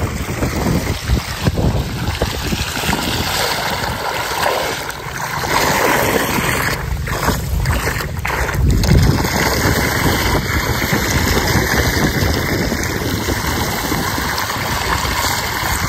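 Water gushing out of an engine-driven pump's hose onto a rice field, with the small pump engine running. Wind buffets the microphone.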